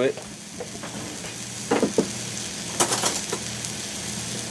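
Steak sizzling steadily on a George Foreman electric contact grill set to high heat. There are a few light knocks just before two seconds in, then a brief clatter of cutlery in a drawer about three seconds in as a knife is fetched.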